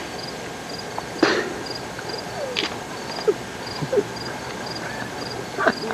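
A steady high-pitched chirp, a short double pip repeating about twice a second, with a few faint scattered clicks and brief rustles.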